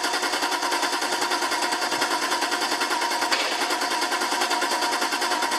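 1997 Mercedes-Benz SL500's V8 engine turning over with a rapid, even chugging rhythm, just beginning to take fuel from a newly replaced fuel pump.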